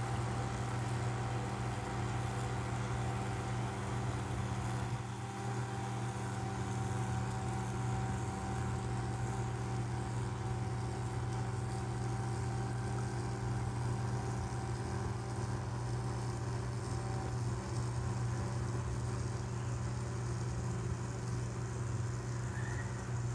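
Small 6-volt DC motors on a model boat spinning its propellers, including an airboat-style air propeller, with a steady electric hum that does not change in pitch or level.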